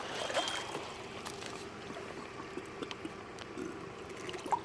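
Faint handling noises with a few small knocks as a freshly landed blue catfish is held in the boat.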